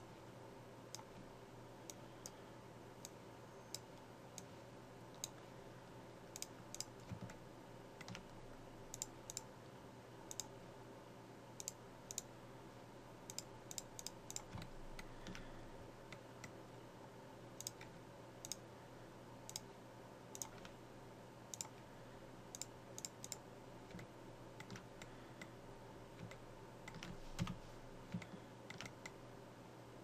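Faint, irregular clicking of a computer mouse and keyboard, some clicks coming in quick clusters, over a steady hum.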